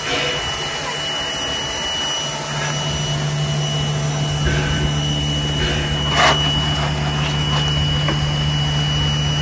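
Steady mechanical hum and hiss from a heritage steam train, with a thin high whine throughout and a few light clicks, one louder knock about six seconds in.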